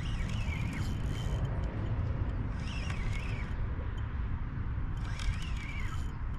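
Wind rumbling on the microphone, with a short higher-pitched sound whose pitch wavers, recurring about every two and a half seconds.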